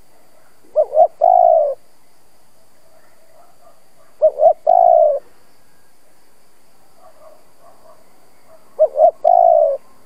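Caged decoy spotted dove singing its coo song three times, about four seconds apart. Each phrase is two short coos followed by a longer, slightly falling coo.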